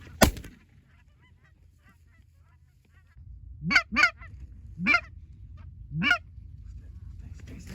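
A single 12-gauge shotgun shot just after the start, then a quiet pause with faint distant calls, then four loud goose honks, each swooping upward in pitch.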